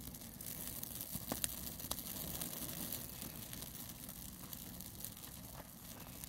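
Small open fire of pine needles and brush burning faintly, with a few sharp crackles a second or two in.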